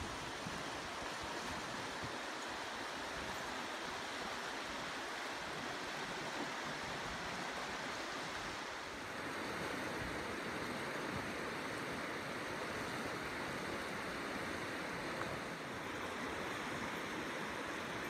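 The Azusa River, a clear, shallow mountain river, rushing steadily over its stony bed. The sound grows slightly louder and fuller about nine seconds in.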